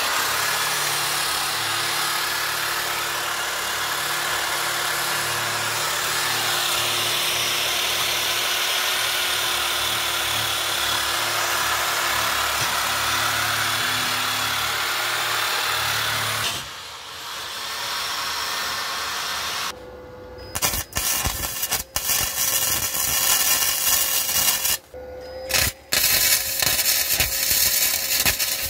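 A corded Bosch electric drill runs steadily for about sixteen seconds, its bit or attachment working against the end of a steel exhaust pipe. After a pause, a wire-feed (MIG) welder crackles in a string of short bursts with gaps between them, welding the exhaust pipe.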